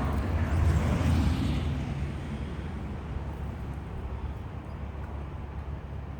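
Wind buffeting the microphone: a low rumble with a stronger gust in the first couple of seconds that then eases off.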